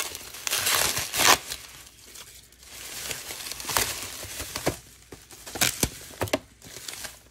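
Bubble-wrap packaging crinkling and rustling in several louder bursts as it is handled and pulled open.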